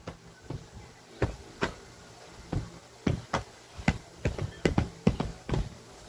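A series of irregular knocks or thumps, roughly two a second, each short and sharp.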